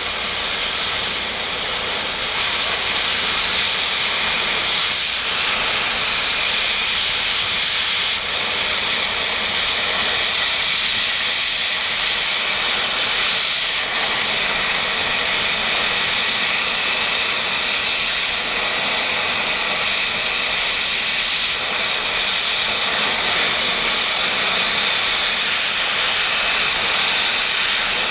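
Cutting torch running with a steady, loud hiss, cutting a steel plate off a tractor lift arm. It gets a little louder about two seconds in.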